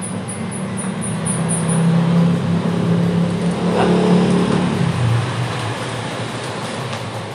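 A motor vehicle's engine hum going by, swelling to its loudest about four seconds in and then fading.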